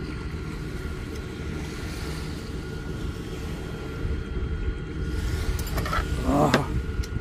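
Wind buffeting an outdoor microphone: a steady low rumble. About six seconds in, a short sound slides down in pitch.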